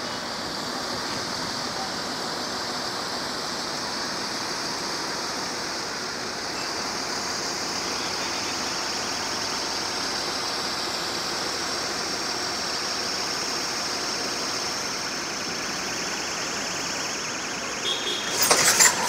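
Heavy-haul MAN diesel tractor unit and its long multi-axle modular trailer rolling slowly past, a steady engine and tyre noise. A few sharp, louder knocks come near the end.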